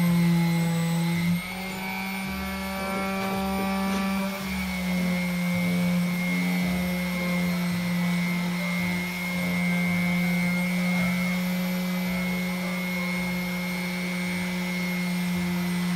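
Handheld electric orbital sander running steadily as it sands the top of a wooden TV stand, preparing it for repainting. It gives a constant motor hum with a high whine, and its pitch steps up slightly just over a second in.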